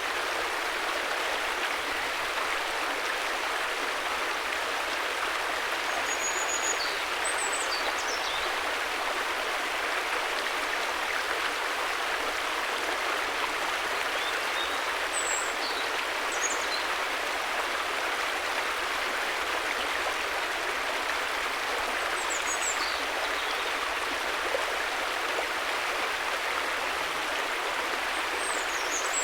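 River water flowing and rushing steadily, an even continuous wash of noise. A few faint high chirps come through it every several seconds.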